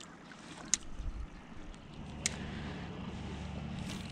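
A distant engine drones steadily and low, building about halfway through and holding. Two sharp clicks come in the first half, about a second and a half apart.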